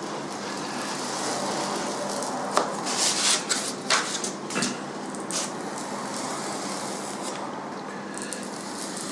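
A blade scoring a sheet of Depron foam: several short scratchy strokes a few seconds in, over a steady background hiss.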